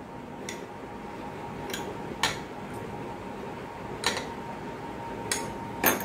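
Metal spoons clinking against glass mugs of melted chocolate: about six light, separate clinks, with a faint steady tone underneath.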